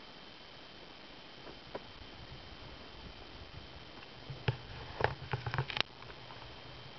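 Handling noise from a handheld camera: a steady hiss with a faint high steady whine, then a quick run of small clicks and knocks starting about four and a half seconds in and lasting about a second and a half.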